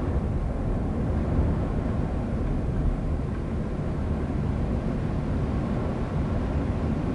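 Rain with wind: a steady, unbroken rushing noise, heaviest in the low rumble, with no gusts or drops standing out.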